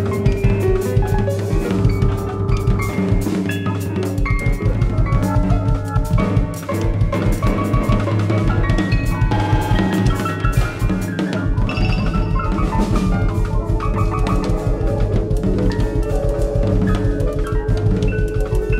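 Live jazz band playing, with the drum kit to the fore: rapid, busy strokes on drums and cymbals over a steady held tone and a sustained low bass.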